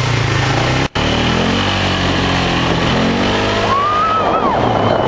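Quad bike (ATV) engine running as it drives along the trail, its note rising twice as it speeds up. The sound cuts out for an instant about a second in, and a brief high-pitched cry rises over the engine near the end.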